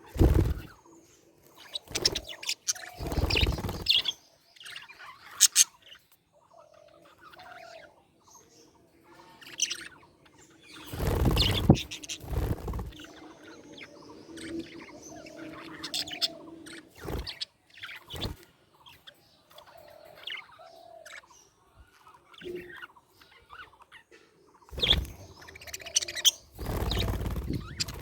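Budgerigars chirping and warbling in short, busy phrases. Several louder rustling bursts break in, the biggest about 11 seconds in and again near the end.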